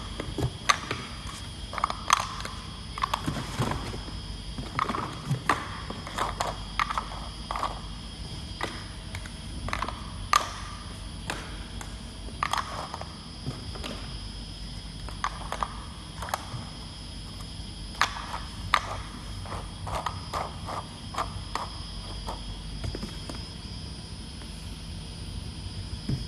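Small plastic jar lids clicking and clacking irregularly as they are handled and shifted on a table, over a steady machine hum with faint high whines.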